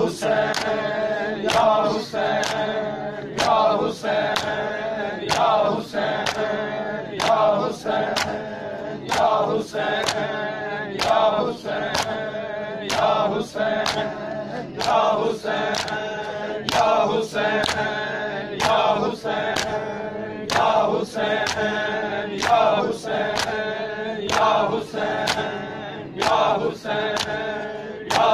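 A group of men chanting a mourning lament in unison while beating their chests in time. The bare-hand slaps on bare chests land in a steady rhythm of roughly two a second, and the chant repeats a short phrase every couple of seconds.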